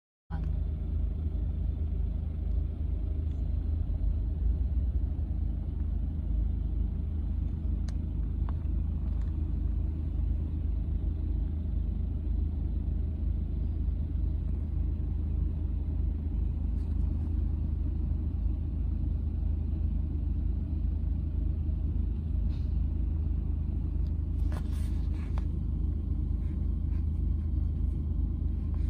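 Steady low rumble of a car heard from inside the cabin, with a few faint clicks and rattles, two of them close together near the end.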